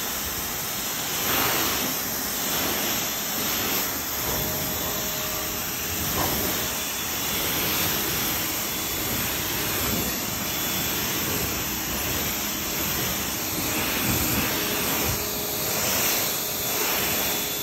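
Electric pressure washer spraying through a 40-degree nozzle, rinsing foam off a truck's painted panels, wheel and the pavement: a steady hiss of the water jet that swells and eases as the spray sweeps across the surfaces.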